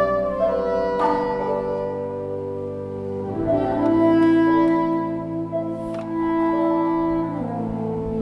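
Symphony orchestra playing slow sustained chords in strings and winds, the held notes shifting every few seconds, with a long-held low note through the middle. A long plucked zither sounds over it, and two sharp accents come about a second in and about six seconds in.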